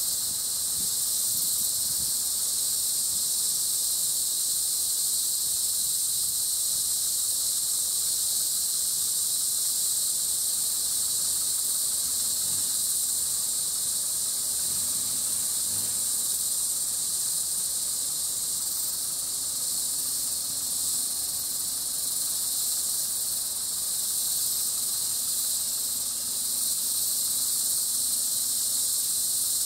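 Steady, high-pitched insect chorus, an unbroken shrill drone that holds an even level throughout.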